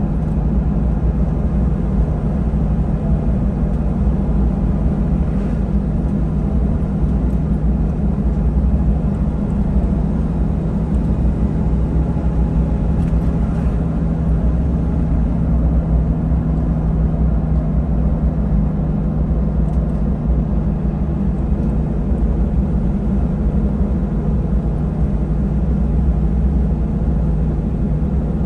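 Truck driving at a steady speed, heard from inside the cab: an even engine and road rumble with a low, steady hum.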